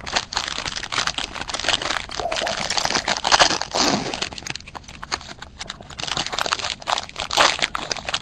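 Foil wrapper of a 2012 Topps Tribute Baseball card pack crinkling as it is handled and torn open by hand, a continuous crackle of many small snaps.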